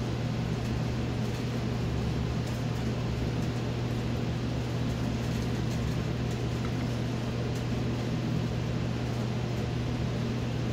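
Steady low hum of a running household appliance, even and unchanging throughout.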